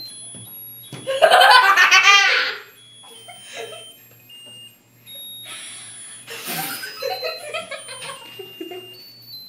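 A girl laughing, a loud shrieking laugh about a second in and more laughter later, over the thin, high electronic beeping tune of a musical lotus-flower birthday candle.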